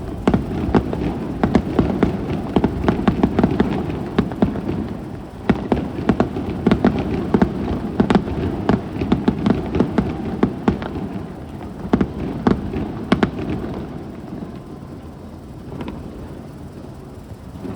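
Aerial fireworks bursting in rapid succession: dense crackling and popping over a low rumble of booms, thinning out about fourteen seconds in.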